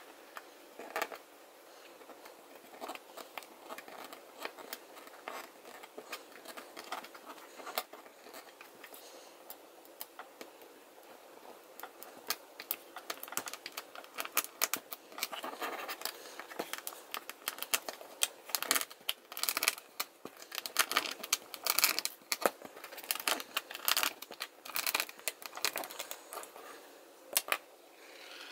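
100-mesh stainless steel wire mesh being rolled tightly by hand around a thin rod on a hard tabletop: a run of scratching, crinkling and small clicks that gets busier and louder from about halfway through.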